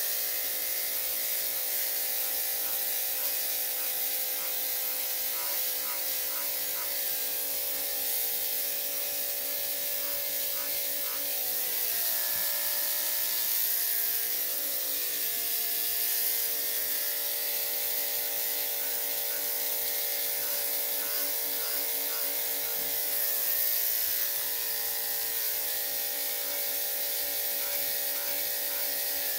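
Electric dog grooming clippers running steadily as they trim a dog's coat, with a continuous motor hum and high hiss. About twelve seconds in, the motor's pitch drops briefly.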